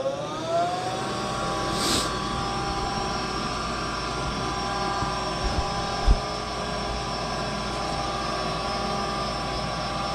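Furnace fan motor spinning up with a rising whine that levels off about a second in, then running steadily. A short hiss comes about two seconds in, and a few dull thumps come near the six-second mark.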